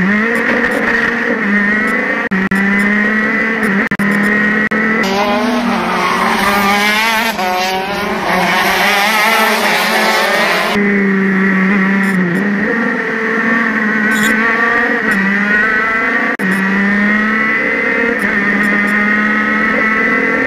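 Racing kart engines running hard at high revs, heard mostly from onboard, the engine note rising and falling slightly through corners. For a few seconds in the middle, the sound is of karts racing past, their pitch wavering.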